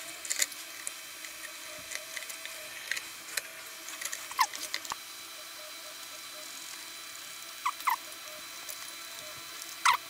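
Small metal bolts and nuts clicking and ticking as they are handled and threaded by hand to fasten two aluminium CPU-cooler heatsinks together, with a few short squeaks falling in pitch, about halfway through and again near the end.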